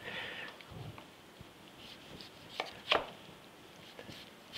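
Chef's knife cutting a tomato on a wooden cutting board: a few sharp taps of the blade against the board, the two loudest close together about three seconds in.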